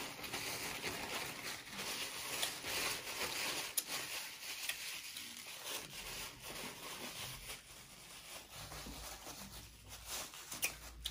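Soft rustling and rubbing of a paper napkin as it is crumpled and wiped over the face and hands.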